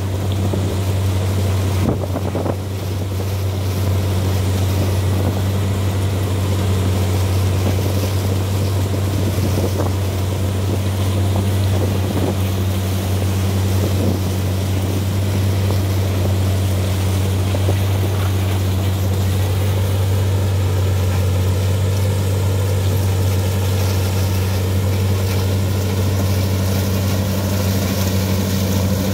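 Diesel engines of a John Deere sugarcane harvester cutting cane and a New Holland tractor hauling the cane wagon alongside, a steady deep drone at working load.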